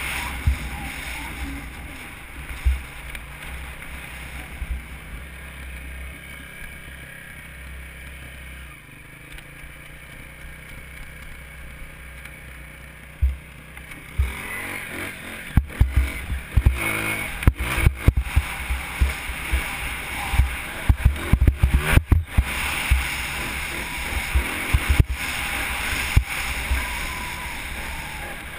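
Dirt bike engine running while the bike is ridden over sandy desert ground. From about halfway through it gets louder, with many sharp knocks and thumps as the bike jolts over bumps.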